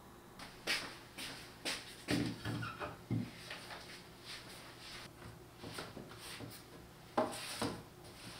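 Tableware and other items being set down and shifted on a wooden table: a string of light knocks and rubs, the sharpest a little before the end.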